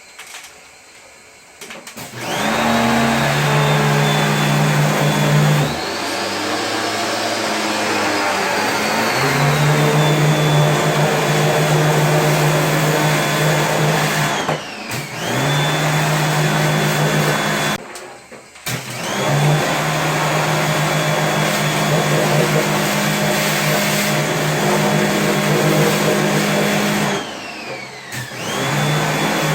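An electric cleaning machine's motor running with a steady high whine over a low hum. It cuts out briefly three times, the whine falling away each time, and starts up again.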